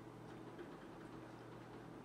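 Quiet room tone with a steady low hum; no distinct clicks or beeps stand out.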